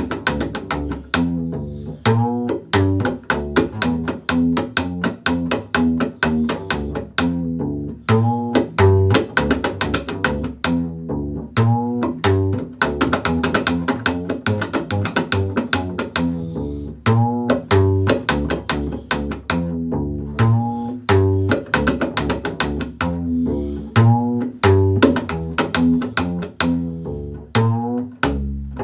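Upright bass fiddle played solo in slap style: plucked bass notes mixed with sharp clicks of the strings snapping against the fingerboard, in a quick, steady rhythm of several strokes a second.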